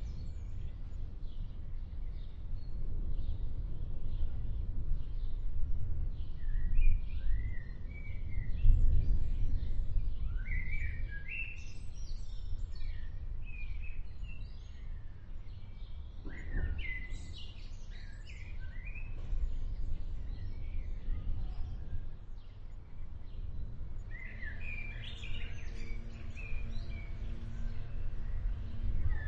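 Songbirds chirping and trilling over a steady low rumble of distant thunder, which swells for a few seconds about a third of the way in.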